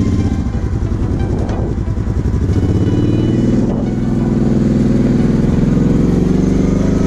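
Kawasaki KFX 700 V-Force quad's V-twin engine running under throttle. The engine note dips about a second and a half in, then climbs steadily from about four seconds in as the revs rise.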